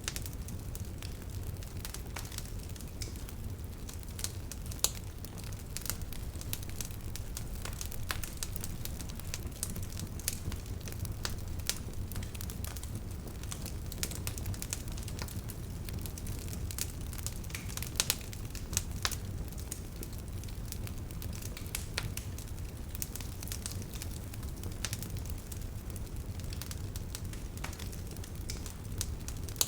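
Bonfire of burning wood crackling and popping at irregular intervals over a steady low rumble of flame, with two louder pops about 5 and 18 seconds in.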